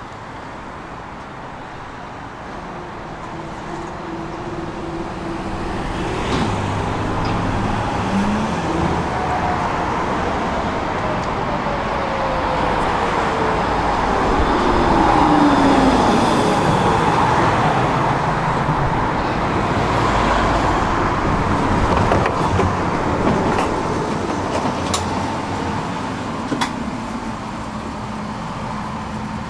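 A city tram arriving and braking: its motor whine falls steadily in pitch as it slows and it grows louder as it comes in, over steady street traffic noise. A few sharp clicks and knocks follow near the end.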